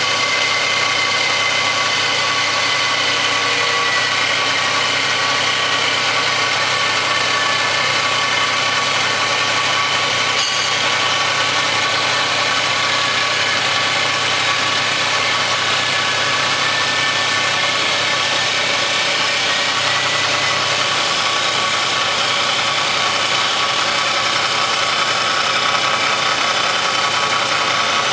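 CNC wood-turning lathe running: a steady, loud machine noise with a constant high whine.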